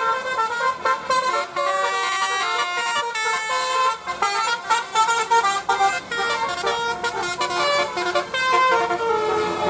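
A bus's telolet basuri musical horn playing a fast melody, its notes stepping in pitch several times a second.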